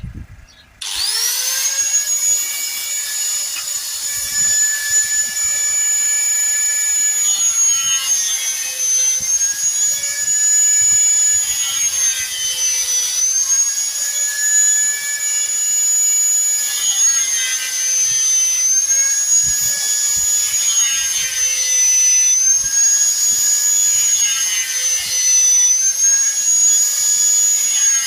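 A high-speed electric power tool starts up and runs at a high steady pitch. Every few seconds the pitch sags and recovers as the tool bites into wood while edge trim for a bird box is worked.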